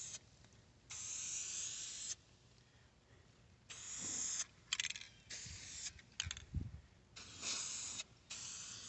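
Rust-Oleum aerosol spray paint can fitted with a wide fan nozzle, sprayed in about five short hissing bursts of half a second to a second each, with a few quick puffs in between.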